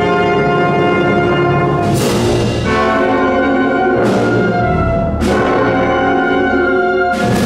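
Symphonic wind band playing a Spanish processional march: sustained brass chords, with four sharp percussion accents about two, four, five and seven seconds in.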